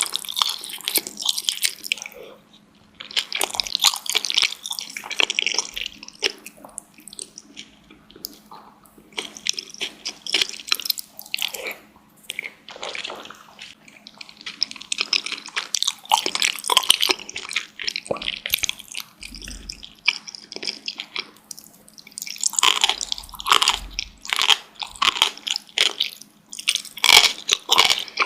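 Close-miked chewing of dumplings: wet, smacking mouth sounds and soft bites in clusters, with brief pauses between mouthfuls.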